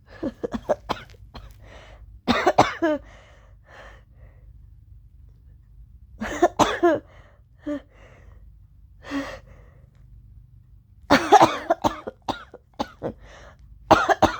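A woman coughing in repeated fits, with shorter single coughs in between. The loudest bout comes about eleven seconds in.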